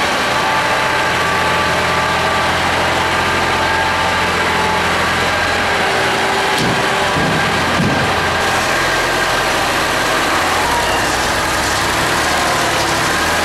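Air-cooled three-cylinder Deutz diesel of an old Atlas 1300 wheeled excavator idling steadily, just after a cold start.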